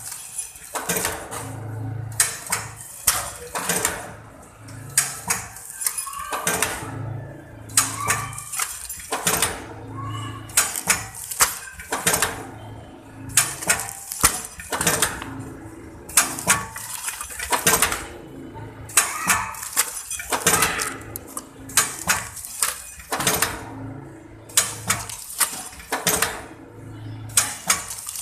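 High-speed pouch packing machine running in a repeating cycle: sharp metallic clacks and clatter a couple of times a second over a steady machine noise.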